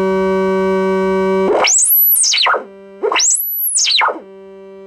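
A Peavey 22A/22XT horn compression driver, fitted with a new replacement diaphragm, playing test tones from a signal generator at low power. It plays a steady tone, then two sweeps that each rise to a high whistle and fall back over about a second, then the steady tone again. The sweep checks the new diaphragm for buzzes or distortion.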